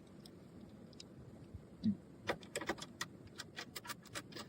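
Light clicking and rattling of hose and cable connectors being handled while fittings are made up on an ICU ventilator: a dull thump about two seconds in, then a quick, irregular run of small sharp clicks.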